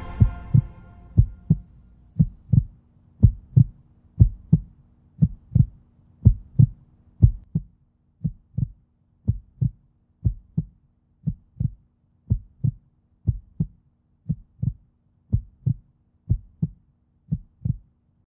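Heartbeat sound effect: paired low thumps, lub-dub, about one beat a second, over a faint steady hum. The music fades out in the first second or two.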